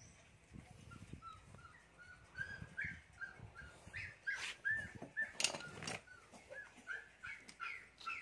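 A dog whimpering in a quick series of short, high whines, about three a second, growing louder after the first couple of seconds. A few sharp clicks sound in the middle.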